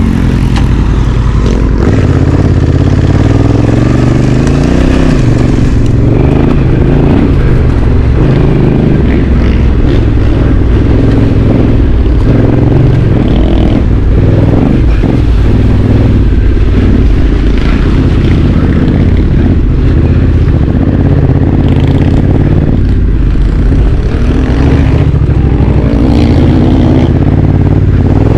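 Honda Africa Twin CRF1100 DCT's parallel-twin engine running as the bike is ridden off-road, its note rising and falling with the throttle, with scattered knocks over rough ground.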